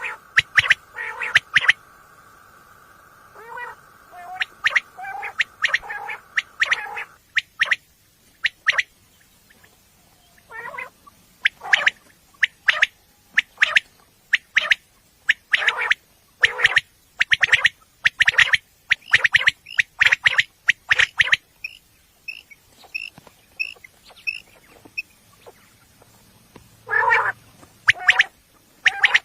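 Quail calling: short, sharp notes repeated in quick groups, over and over. For the first seven seconds a steady tone sits beneath the calls, and a run of higher, thinner notes comes in past the middle.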